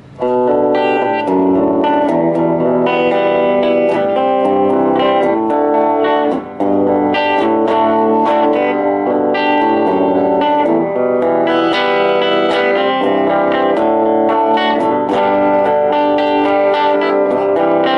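Electric guitar played through a freshly repaired Sears Silvertone 1481 tube amplifier, a run of picked chords and single notes, working and loud enough, with a short break about six and a half seconds in.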